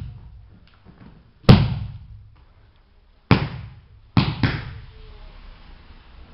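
Bodies landing on padded martial-arts mats: four sharp thuds and slaps of falls and breakfalls, one about a second and a half in, one a little after three seconds, and two close together just after four seconds, each ringing out briefly in the hall.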